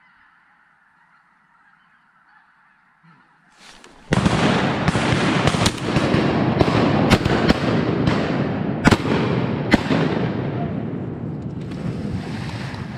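Waterfowl calling faintly, then from about four seconds in a loud, dense clamour of honking, with sharp cracks sounding through it several times.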